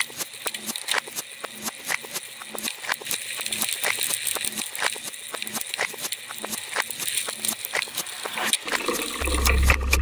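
Mountain bike rolling over a rough dirt forest track, heard from a camera mounted on the handlebar: a continuous stream of irregular rattling clicks as the bike and mount jolt over the bumps. A low rumble joins in shortly before the end.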